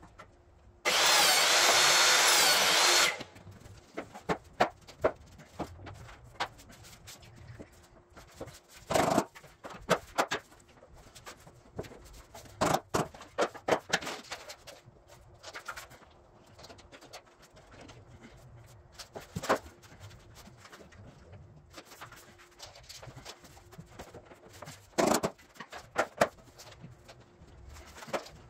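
A handheld power tool runs for about two seconds near the start, then stops. After it come scattered knocks and clicks of vinyl planks and hand tools being handled on the floor.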